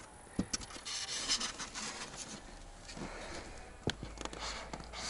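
Rubbing and scraping of polystyrene foam scraps being cleared up, with scattered light knocks and one sharper knock near the end.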